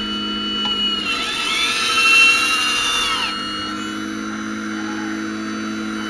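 Radio-controlled Hitachi Zaxis 870 model excavator running: a steady motor whine, with a higher whine that rises and falls in pitch as the boom and arm move, loudest about two seconds in.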